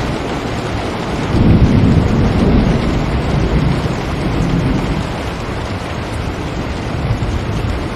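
Steady rain, with a low rumble of distant thunder swelling up about a second in and fading away over the next few seconds.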